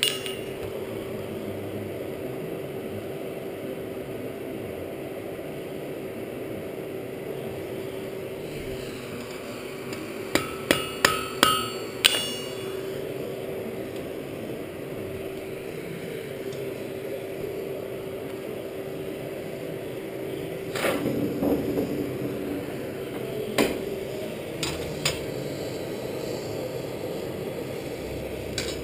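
About ten seconds in, a quick run of five ringing hammer blows on steel, with a few fainter metal clanks later on. Underneath is a steady hum from the coal forge's air blower, which stops a few seconds before the end.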